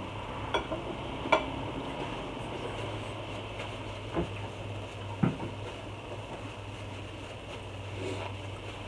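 Table sounds of a meal being eaten: a few short, sharp clicks and taps of dishes and food being handled, about a second in and again around four and five seconds in, over a steady low hum.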